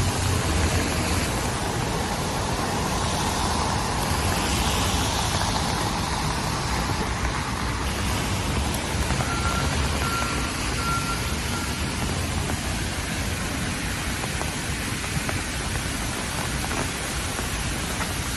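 Steady rain with traffic going by on wet city streets: an even hiss of rain and tyres, with a vehicle rumble at the start and a swell of tyre spray a few seconds in. A faint short beeping about halfway through.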